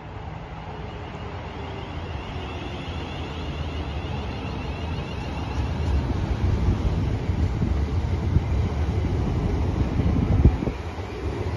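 A train approaching through the station, its low rumble growing steadily louder.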